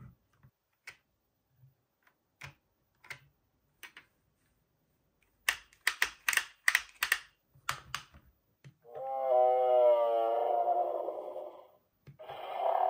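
Electronic dinosaur toy's roar sound effect, played twice: one call of about three seconds with a wavering pitch, and a second starting near the end. Before it come sharp plastic clicks, including a quick run of them around the middle, as the toy is handled and its button pressed.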